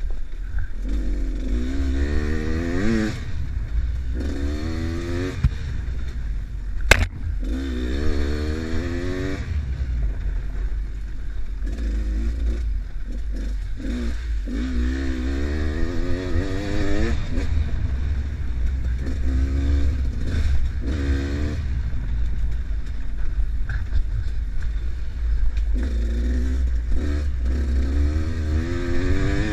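Enduro dirt bike engine running under way over a rough trail, revving up again and again in rising bursts over a heavy low rumble. A sharp knock cuts through about seven seconds in.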